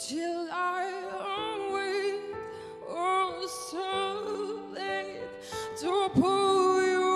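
A woman singing a slow, emotional ballad, holding long notes that waver and bend in pitch, over sustained accompaniment chords.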